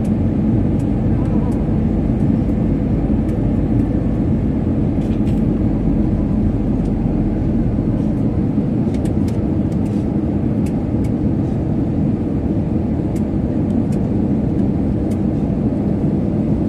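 Steady cabin noise of an airliner on approach, the underwing turbofan engine's roar heard through the cabin, with a steady low hum and a few faint light ticks.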